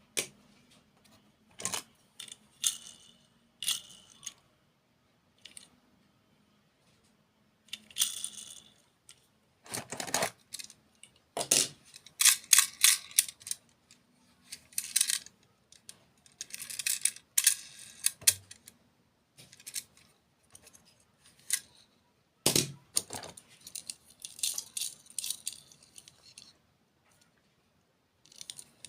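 Close-miked eating sounds from a dessert mukbang: irregular bites, crunches and sharp clicks, with dense runs of quick crackling in the middle and again near the end.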